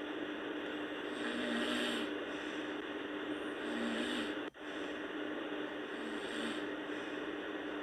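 Sleeping girl snoring, three snores about every two and a half seconds over a steady hiss and low hum. The sound cuts out very briefly a little past halfway.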